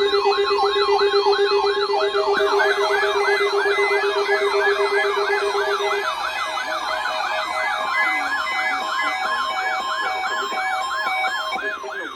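Electronic siren alarm of weather alert radio receivers going off for a NOAA Weather Radio test: a wailing tone sweeping up and down about four times a second, layered with steady beeping tones, the lowest of which stops about six seconds in.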